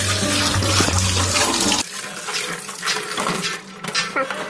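Tap water running hard into a sink, for dishwashing, then cut off suddenly about two seconds in, followed by a few faint clicks.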